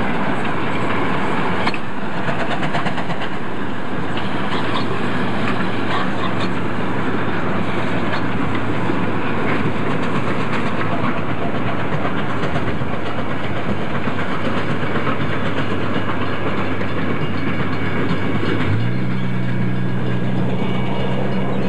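Steady running noise and rail clatter from the WAGR Pm-class steam locomotive Pm706 and its train, heard from a car driving alongside, mixed with the car's own road noise. A low, even drone comes in near the end.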